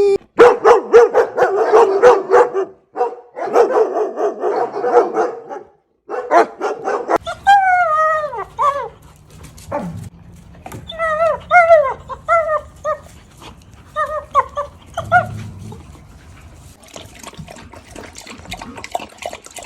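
German shepherd vocalising: three runs of rapid, repeated barks over the first several seconds, then a series of high whines that slide down in pitch. The whines come as one long one and then several short ones in a row, and the dog grows quieter near the end.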